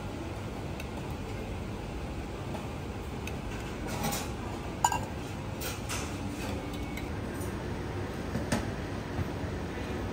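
Light clinks and taps of metal utensils on metal: a spoon against a small steel sauce pot and tweezers on a steel tray during plating, over a steady background hum. The sharpest clink comes about five seconds in.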